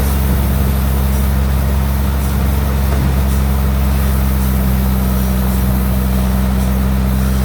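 Bandsaw sawmill machinery running steadily, a constant low engine-like drone.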